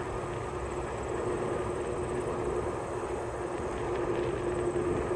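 Wheels rolling over an asphalt path at riding speed, with wind noise on the microphone and a steady hum underneath.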